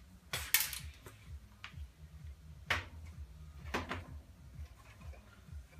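Knocks and clatter of a computer case and its parts being handled: a sharp double knock about half a second in, then single knocks near three and four seconds, over a low steady hum.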